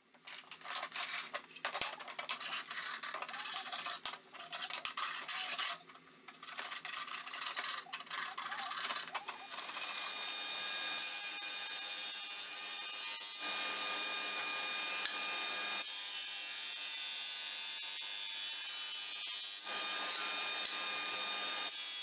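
Irregular rubbing and scraping on wood for the first several seconds. Then a drum sander starts up and runs steadily with a whine, its sound changing a few times as a glued-up oak panel feeds through the sanding drum.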